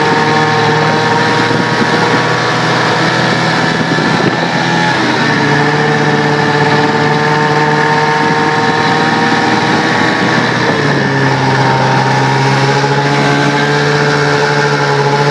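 Arctic Cat ZR snowmobile's two-stroke engine running steadily under way; its note wavers briefly about four to five seconds in, then drops a little about eleven seconds in and holds at the lower pitch.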